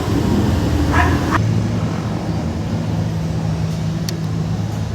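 Street traffic: vehicle engines running with a steady low hum, and one short higher-pitched call or bark about a second in.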